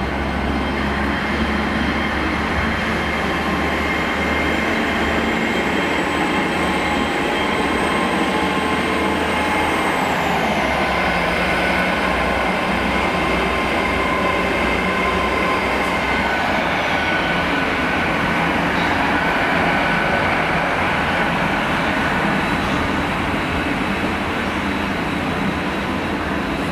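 GWR Hitachi Class 800 train of two coupled units moving slowly past: a steady rumble and rattle of wheels on rail, with a high whine that climbs gradually, then drops away about ten seconds in and again about six seconds later.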